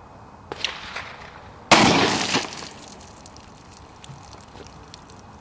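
A single shot from a Springfield XD(M) .45 ACP pistol about a second and a half in, sharp at the start and dying away over about a second.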